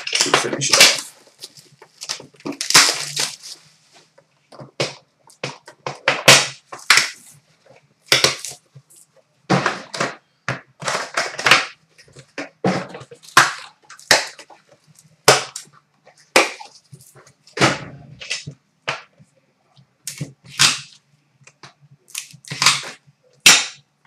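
Trading-card box and its plastic wrap being handled and opened by hand: a run of short, sharp crinkling, scraping and knocking sounds of plastic film and cardboard, coming every second or so.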